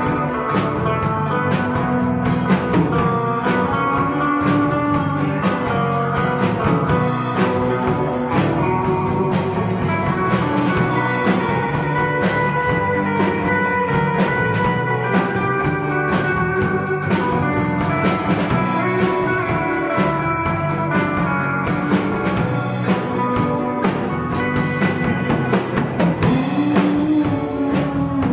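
A live rock band plays an instrumental stretch: a lead electric guitar plays a melodic line over drum kit and bass guitar.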